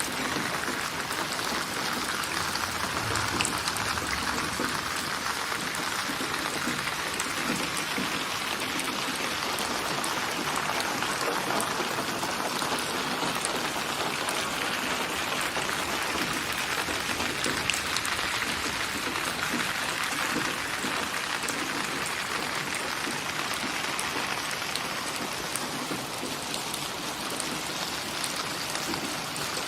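Steady rain falling: an even, dense hiss with scattered drop ticks.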